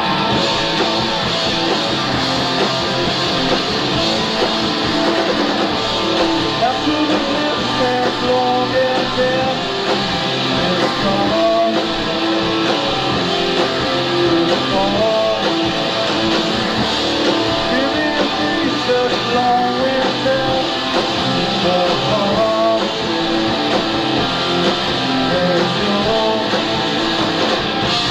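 Rock band playing live: distorted electric guitars over bass and drums, heard on an audience tape recording.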